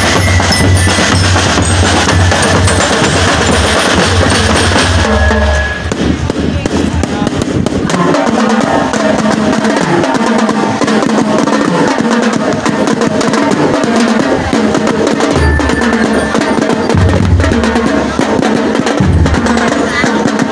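Drum and lyre marching band playing: bass, snare and tenor drums beating a rhythm, with bell lyres. The heavy bass-drum beat drops out about six seconds in and comes back in short stretches near the end.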